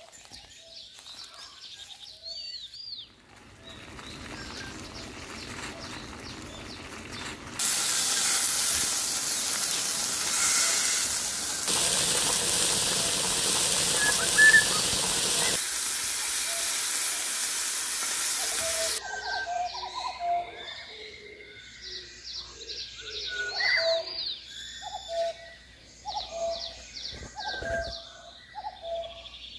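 A pot of cheonggukjang stew with tofu boiling hard: a loud, steady hiss that starts suddenly about seven seconds in and stops about eleven seconds later. Birds chirp before and after it.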